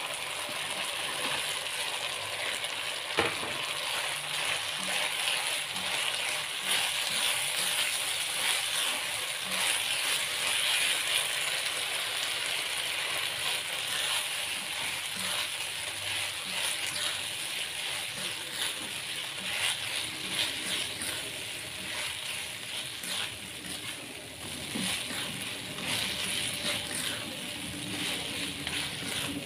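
Shrimp sizzling in hot oil and sauce in a nonstick wok, a steady hiss broken by the clicks and scrapes of a spatula stirring them, with a sharper knock of the spatula against the pan about three seconds in.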